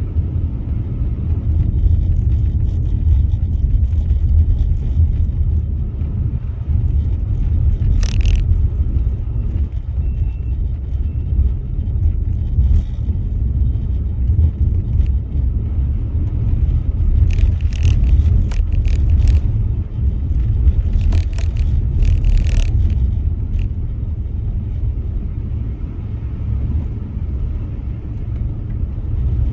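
Steady low rumble of a car driving on snow-covered roads, heard from inside the cabin. A few brief hisses come about eight seconds in and several more in the second half.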